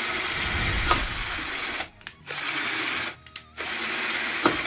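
Tramontina 10.8 V cordless drill-driver, which has no hammer mode, drilling an 8 mm masonry bit into a hollow ceramic brick. It runs for about two seconds, stops, then runs in two more short bursts.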